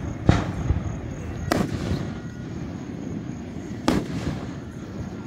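Aerial firework shells bursting: three sharp booms, one just after the start, one about a second and a half in and one about four seconds in.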